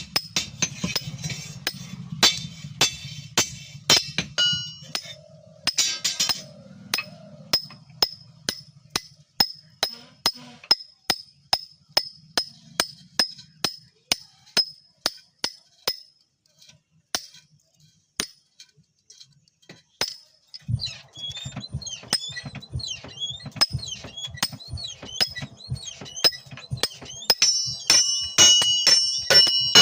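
Hammer striking steel on an anvil at a steady pace of about two blows a second, each blow ringing. In the last third a steady low hum and wavering high ringing tones join the hammering.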